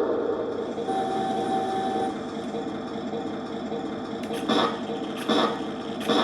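1:16 RC model tank running: a steady mechanical running sound. From about two-thirds of the way in, a sharp clack repeats about every 0.8 seconds.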